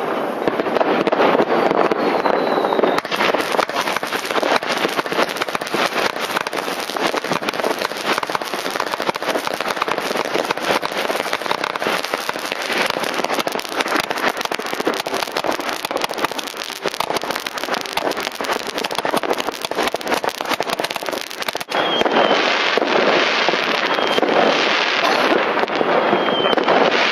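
Fireworks and firecrackers going off in a dense, continuous barrage of crackling bangs, with a few short high whistles. The sound breaks off abruptly about 22 seconds in and the barrage resumes straight away.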